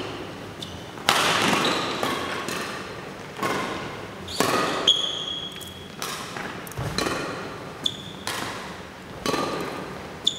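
Badminton rackets striking a shuttlecock back and forth in a doubles rally: sharp hits about once a second, each echoing in the hall, with a few short high squeaks.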